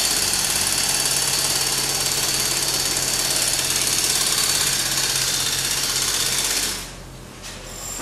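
Pneumatic hammer at a construction site, hammering loudly and without a break. It stops suddenly about seven seconds in, leaving a quieter site background.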